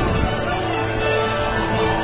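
Christmas parade music playing over the floats' loudspeakers, with long held notes.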